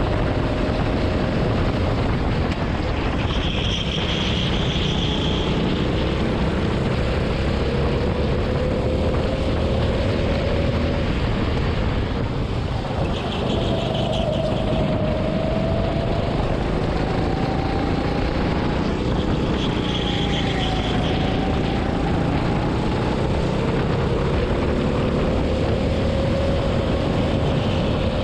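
Racing kart running at speed, heard from the driver's seat: a steady drone under rushing wind on the microphone. Its pitch drops into the slow corner and climbs again on the straights, with three short high squeals along the way.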